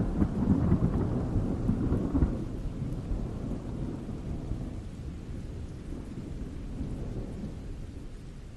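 Rolling thunder rumbling, loudest for the first two seconds and then slowly dying away.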